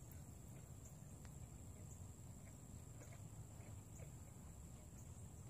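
Near silence: faint outdoor ambience with a steady thin high-pitched tone over a low rumble, and a few faint ticks.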